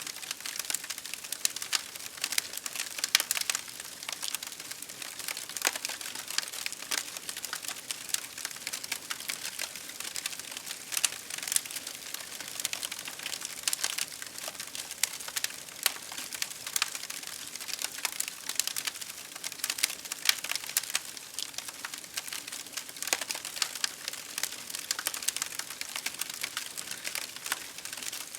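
Wood fire crackling steadily with dense, irregular sharp pops over a continuous hiss of rain.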